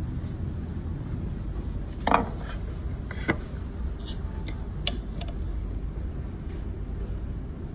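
Knocks and clacks of a metal mold and plate stack being handled and set into a repair machine's chamber. The loudest knock comes about two seconds in and a few lighter clicks follow, over a steady low hum.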